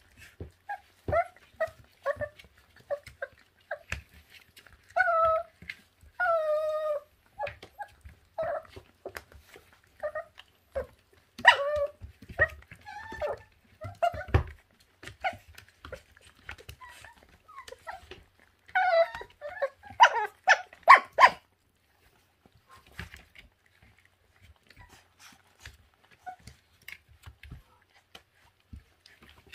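Two 26-day-old puppies yelping and whining as they tussle, with many short high calls and a couple of longer drawn-out whines; the calls stop about two-thirds of the way through.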